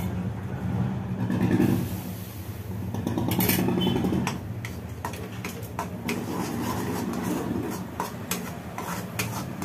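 A steel spatula scraping and clicking against a steel kadhai as thick gram-flour batter is stirred with hot ghee, with a brief hiss about three and a half seconds in, over a steady low motor-like hum.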